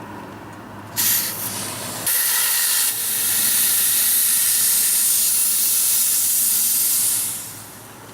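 CO2 cartridge inflator emptying into a bicycle tyre through a Presta valve: a loud gas hiss that starts abruptly about a second in, dips briefly, then runs steady for about five seconds before fading out as the cartridge empties.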